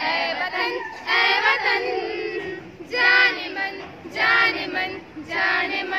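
Young girls' voices singing a song in short phrases with brief pauses between them.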